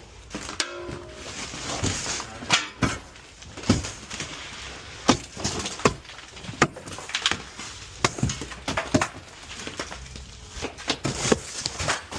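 Roofing being pried up and broken apart with a shovel: irregular cracks, knocks and scraping, with wood splintering.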